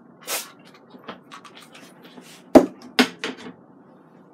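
A short hiss of a trigger oil sprayer misting olive oil over potato wedges in an air fryer basket. Then come a few sharp knocks and clacks of hard objects on the counter, about two and a half to three and a half seconds in; the first knock is the loudest.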